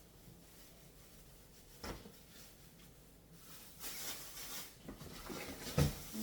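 Kitchen handling noises as groceries are sorted: a light knock about two seconds in, a stretch of rustling, and a couple of louder knocks near the end.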